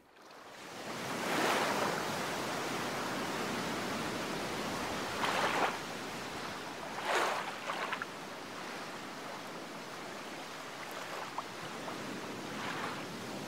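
Small sea waves washing onto a sandy shore. The steady wash fades in at the start, and a wave surges in every few seconds.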